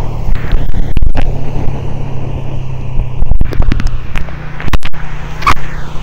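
Motorcycle engine running steadily while riding, under loud rushing wind on the microphone with several sharp gusts.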